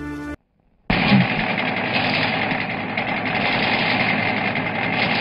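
A street-sweeping machine running, its engine and rotating road brush making a steady mechanical noise with a faint high whine. It starts about a second in, after music cuts off and a moment of silence.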